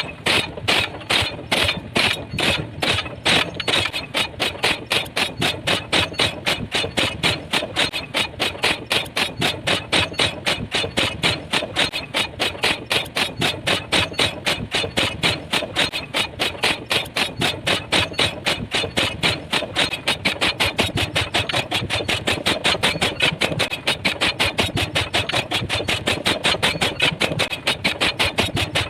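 Pile driver hammer pounding a pile, blow after blow in an even rhythm of about three blows a second.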